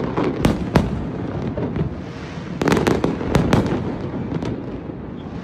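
Aerial fireworks shells bursting overhead: a couple of sharp bangs about half a second in, then a quick cluster of bangs between about two and a half and three and a half seconds in, with a few fainter pops after.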